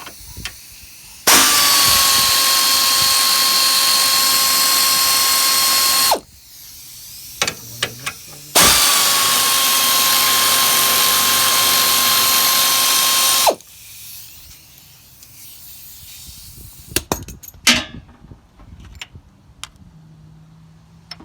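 A power drill with a socket spinning out the radiator's 12mm mounting bolts: two steady runs of about five seconds each, one per bolt, with a high whine. A few sharp clicks follow near the end.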